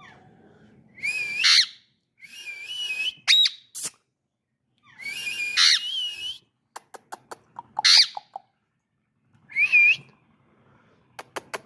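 Ringneck parrot making a series of short, high squawks and whistles that bend up and down in pitch, with runs of quick clicks between the calls.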